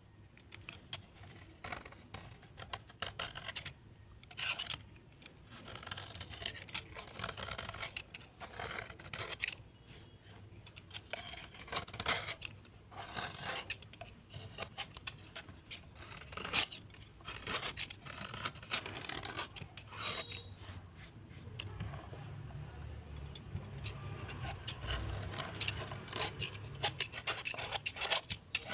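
Crunchy scraping of wet, earthy material, in many quick, irregular strokes with an occasional louder crunch.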